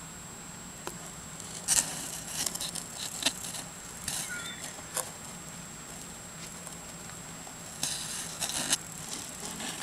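Hedgehog chewing mealworms close to the microphone: short spells of crackly, smacking crunching, starting about two seconds in, again around the middle, and once more near the end.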